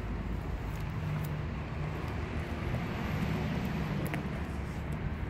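A steady low rumble of motor or traffic noise, with a couple of sharp clicks, about a second in and again near four seconds, from puppies gnawing on a frozen raw tilapia.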